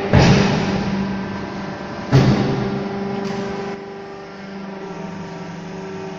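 Fly ash brick making machine at work: two thuds, one at the start and one about two seconds in, and a lighter knock a second later, over the steady hum of its motor.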